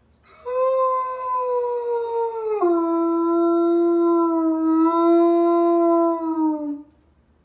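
A large white dog howling: one long howl that begins about half a second in and slides slowly lower, drops suddenly in pitch about two and a half seconds in, holds steady at the lower note, and fades out near the end.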